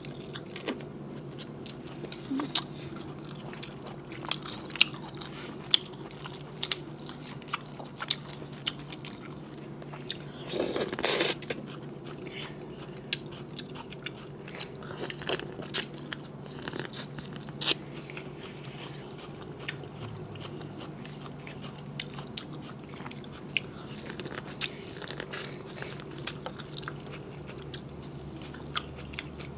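Close-miked eating: biting and chewing crawfish and corn on the cob, with short crisp crunches and clicks scattered throughout and a louder burst of crunching about eleven seconds in. A steady low hum sits underneath.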